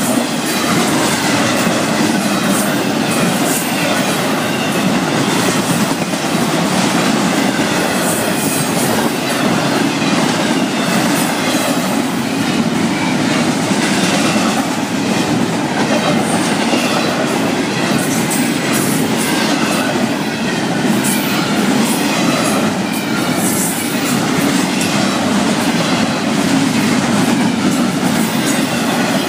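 Florida East Coast Railway intermodal freight cars rolling past at speed: a loud, steady rumble and clatter of steel wheels on the rails.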